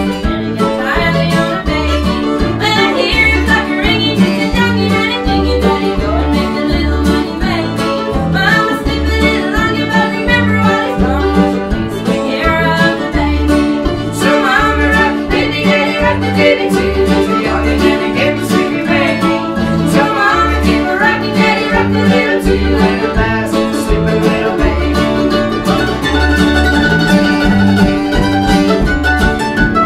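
Bluegrass string band playing live: upright bass keeping a steady beat under guitar, mandolin and fiddle, with a woman singing.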